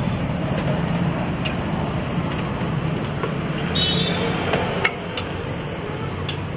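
A metal spatula clicking and scraping on a flat dosa griddle: scattered sharp clicks, one with a brief metallic ring about four seconds in, over a steady low background rumble.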